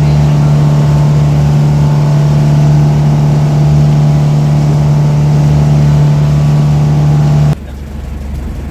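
Boat engine running steadily at cruising speed, a loud, even drone that cuts off abruptly near the end, leaving a lower rumble.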